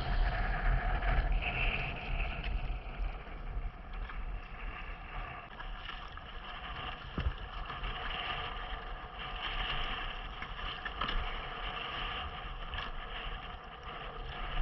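Wind buffeting the microphone over choppy sea water, with waves slapping and splashing and a steady low rumble.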